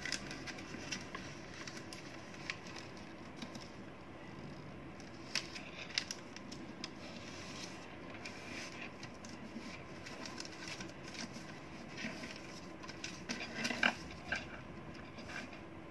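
Origami paper rustling and crinkling as it is folded and creased by hand on a tabletop, with scattered soft taps and a louder cluster of crackles near the end. A faint steady hum runs underneath.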